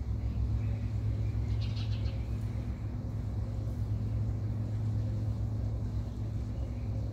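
A steady low mechanical drone, with a short high-pitched call about one and a half seconds in.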